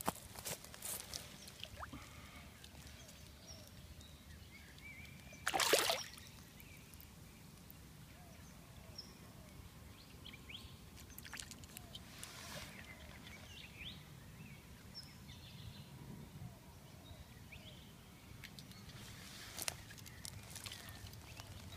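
Small splashes and sloshing of shallow pond water as a tench held in a lip grip is lowered in and released, with one louder splash about five and a half seconds in.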